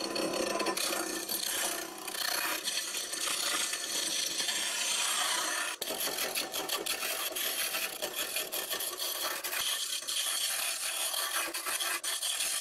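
Wood lathe spinning a green oak handle blank while a hand-held turning tool cuts along it: a steady scraping hiss of shavings peeling off. The cut eases off briefly about two seconds in and again near six seconds.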